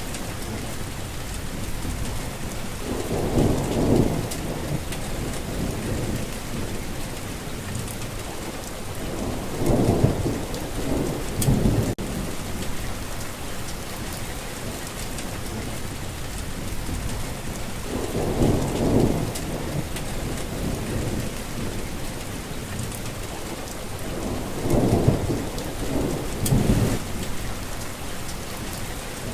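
Steady rain falling, with rolling thunder rumbling four times: about three seconds in, near ten seconds, near eighteen seconds and again around twenty-five seconds.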